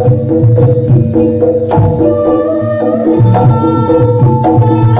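Javanese jaranan gamelan music led by a hand-played kendang drum, beating quick low strokes over held pitched tones from the rest of the ensemble, with a few heavier low hits.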